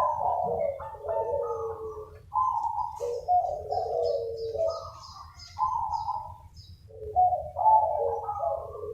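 Several zebra doves cooing at once, their rolling coos overlapping and answering one another. A run of high, quick chirps from a smaller bird sounds through the middle.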